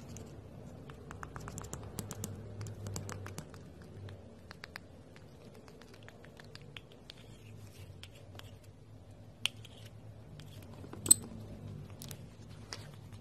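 Thick paint being scooped from a plastic cup, poured and stirred with a spoon: a run of small sticky clicks and scrapes, with two sharp taps, the louder one near the end.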